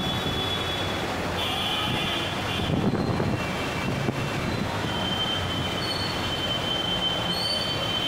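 Steady wash of heavy rain and floodwater with vehicles wading through a flooded street, overlaid by thin high-pitched squeals that come and go, one from about a second and a half to three seconds in and another from about five seconds in.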